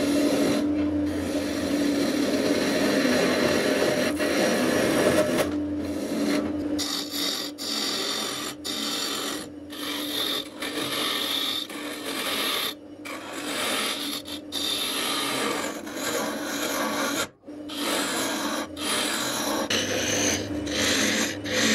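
Wood lathe spinning a cylindrical wooden blank while a hand-held turning chisel cuts its surface: a continuous scraping hiss with a steady hum under it for the first few seconds. From about six seconds in, the cutting is broken by many short gaps.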